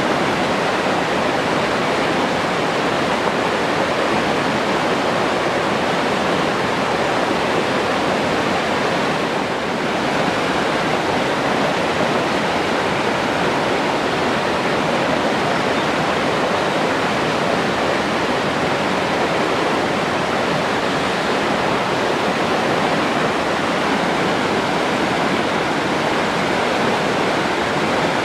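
Forest stream rushing steadily over rocks, a constant even wash of flowing water.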